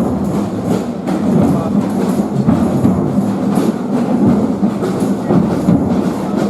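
Music with percussion, dense and steady.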